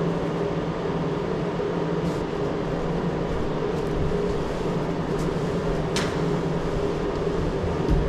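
Steady machine hum with a few held tones, and one short sharp sound about six seconds in.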